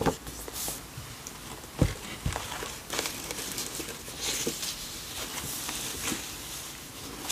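Thick paper pages and inserts of a handmade journal being turned and handled: rustling paper with a few soft taps and knocks.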